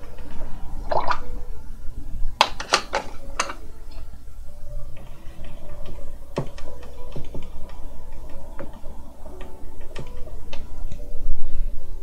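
A paintbrush mixing wet watercolour paint in a palette: a quick run of sharp taps and clicks of the brush against the palette wells about two and a half to three and a half seconds in, then softer scattered clicks and wet dabbing, over a steady low rumble.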